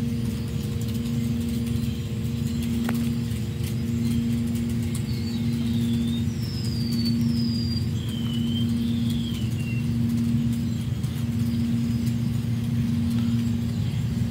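Steady electric hum of a water pump running, with a low rumble beneath it. A few short, high bird chirps come about five to ten seconds in.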